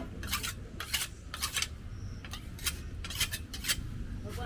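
Kitchen knife being sharpened by hand, the blade drawn in short rasping strokes across an abrasive surface, about two strokes a second.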